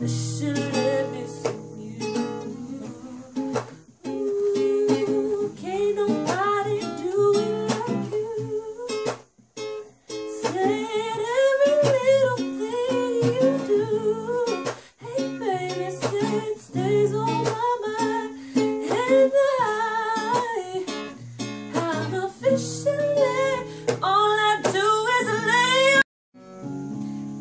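A girl singing a melody to strummed ukulele chords, with a few brief breaks in the sound and a short stop near the end.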